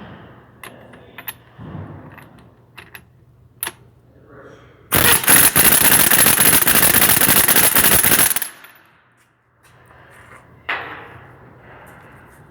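Impact wrench hammering on lug nuts in one burst of about three and a half seconds, starting about five seconds in, with a few light tool clicks before it.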